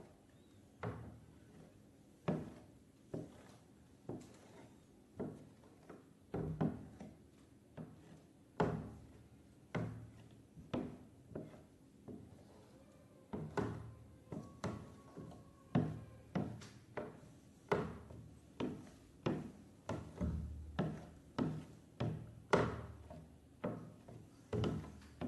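A long series of dull thunks, about one a second.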